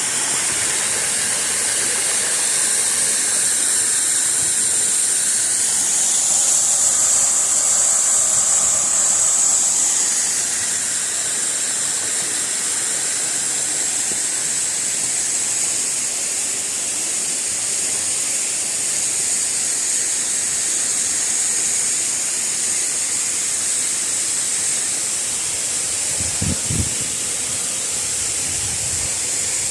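Waterfall rushing in a steady roar of white water, a little louder in the first third. A brief low thump comes near the end.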